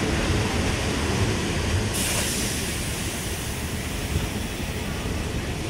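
Train running with a steady low rumble, with a sudden sharp hiss about two seconds in that fades over a second or so.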